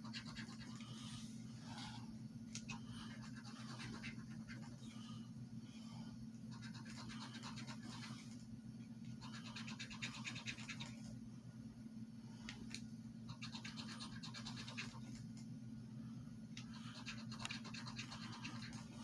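A coin scratching the coating off a scratch-off lottery ticket. It comes in faint scratchy strokes of a second or two, with short pauses between them as it moves from spot to spot.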